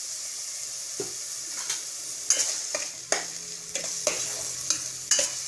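Chopped tomatoes and onions sizzling in hot oil in a kadai, a steady frying hiss, with a spoon stirring and scraping against the pan every second or so.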